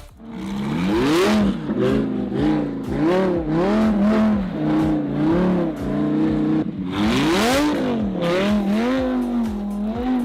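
Sports car engine revving up and down over and over, its pitch rising and falling about once a second, with two longer, louder rushes of noise, about a second in and near eight seconds.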